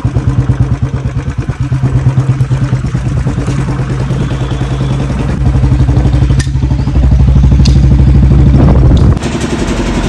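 Royal Enfield Bullet's single-cylinder engine running with a steady, even thump. It gets louder about seven seconds in and cuts off abruptly near the end.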